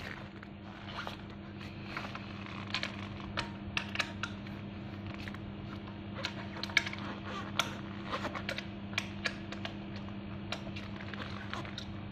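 Allen key clicking and scraping against the bolts of a Megawheels S5 electric scooter's folding stem joint as they are worked to tighten the loose front pole: many small, irregular metal clicks over a steady low hum.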